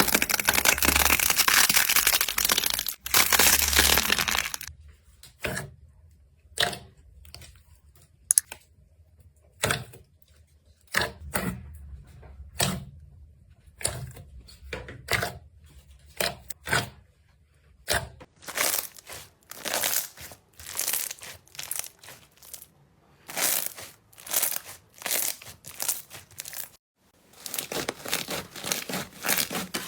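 Slime being worked by hand, making crackly, tearing sounds. It starts with about four seconds of continuous crackling, then gives separate short squishes about once a second, then quicker clusters of them again in the last third.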